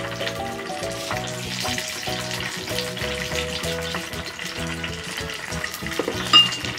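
Tempura, stuffed green peppers in batter, frying in hot oil: a steady crackling sizzle. Soft background music of held notes plays along, and a short sharp clink sounds near the end.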